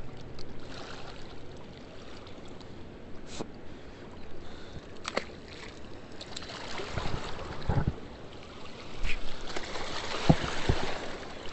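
Steady rush of river water at a spillway, swelling in the second half, with a few sharp clicks and some low knocks of handling.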